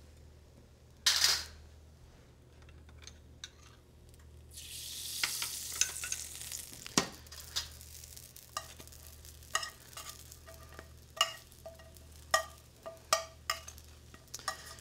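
Bread croutons frying in hot clarified butter in a stainless steel skillet, sizzling. The sizzle swells sharply about a second in and again from about four and a half seconds in for a couple of seconds. Metal tongs tap and click against the pan many times through the second half.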